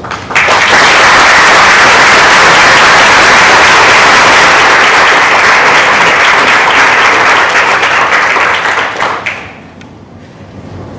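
Audience applauding, starting just after the talk ends and dying away after about nine seconds.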